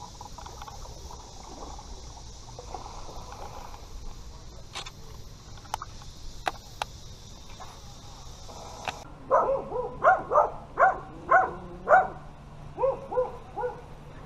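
A steady high hiss with a few sharp clicks, which cuts off abruptly about nine seconds in. Then a dog barks about ten times in quick succession.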